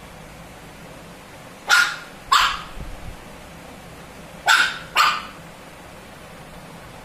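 Shih Tzu puppy barking: four short yaps in two pairs, the second pair about three seconds after the first, at a treat held just above it.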